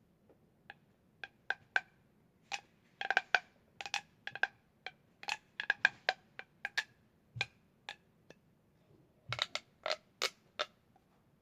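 Plastic pop tubes (corrugated fidget tubes) being stretched and squeezed, their ridges snapping in a long series of sharp, irregular pops and clicks, some in quick clusters.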